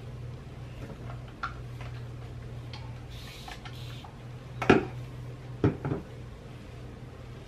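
A few sharp clicks and knocks of small hard objects being handled, the loudest about halfway through and a pair of quicker ones just after, over a steady low hum.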